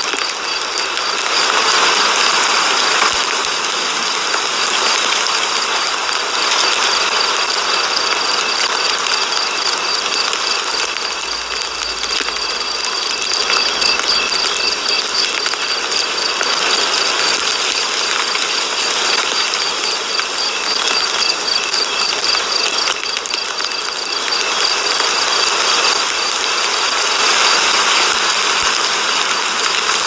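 Chevrolet truck engine running, heard from inside the cab, with a steady rapid mechanical ticking; it gets a little louder near the end as the revs rise.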